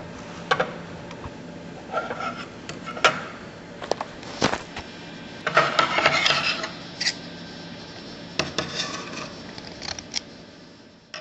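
Handling noises as sewn fabric pieces and thread are moved about on a table: short rustles and small clicks and taps at irregular moments, over a faint steady hum.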